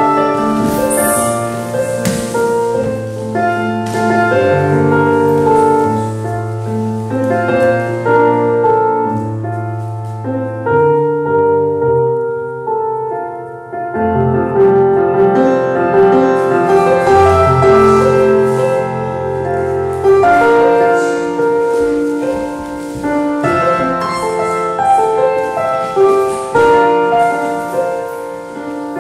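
Slow piano music: a melody over low held bass notes, thinning out to a sparser passage about halfway through before building again.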